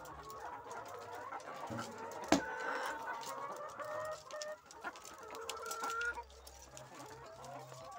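A flock of caged laying hens clucking, many birds calling over one another, with one sharp knock a little over two seconds in.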